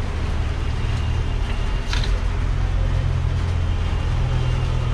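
A steady low mechanical hum over street noise, with a short scrape of a metal scoop digging into a tub of ice cream about two seconds in.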